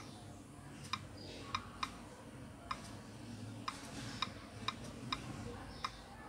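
Cherry Mobile Flare J3's on-screen keyboard clicking as keys are tapped: about ten short, sharp ticks at an uneven typing pace.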